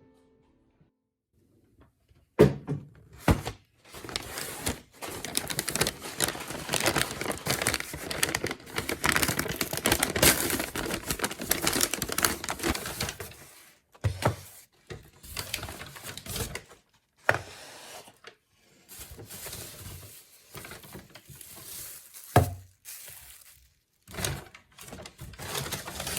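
Close handling sounds: packaging crinkling and rustling for about ten seconds, with a few sharp knocks of things being set down or handled, then shorter rustles and knocks.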